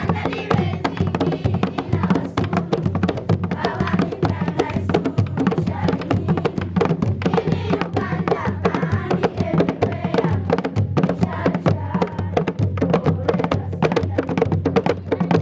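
Background music with busy, steady percussion over a sustained melodic part.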